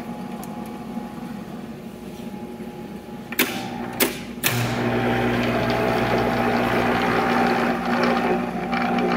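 Monarch 10EE lathe running with a steady mechanical hum; about three and a half seconds in come three sharp clunks as its gearbox levers are shifted, and from then on the gear train runs noticeably louder with a busier whir. This is the noisy gear train the owner is trying to track down.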